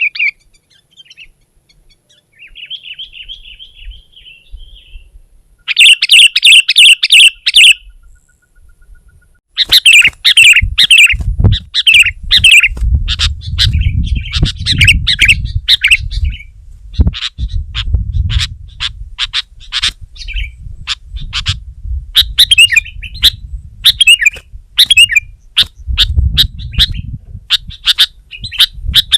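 Sooty-headed bulbul calling: soft calls at first, a loud burst of chatter about six seconds in, then fast, repeated chattering notes from about ten seconds on.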